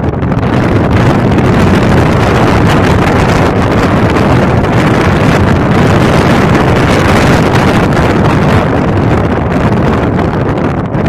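Strong wind buffeting the microphone: a loud, steady rumbling rush with no break.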